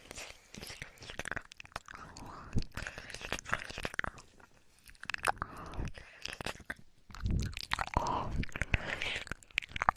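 Close-miked ASMR mouth sounds: wet clicks, smacks and nibbling noises of 'ear eating', coming quickly and irregularly with brief pauses.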